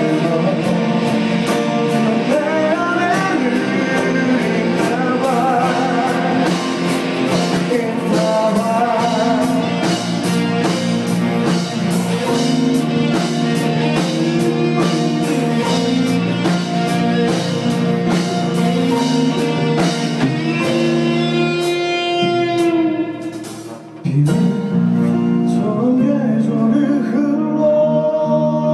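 A live band playing a song: acoustic and electric guitars over a steady beat, with singing at times. The music thins and nearly drops out for a moment about three quarters of the way through, then comes back in.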